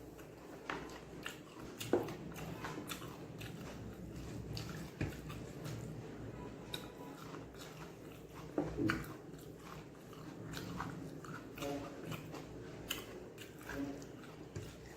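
A person chewing and eating close to the microphone: irregular wet clicks, lip smacks and mouth noises, with a few louder smacks about two seconds in and again about nine seconds in.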